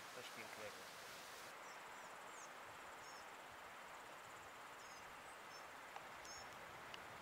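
Quiet mountain-meadow ambience: a steady faint hiss, with short faint high chirps scattered through from about a second and a half in.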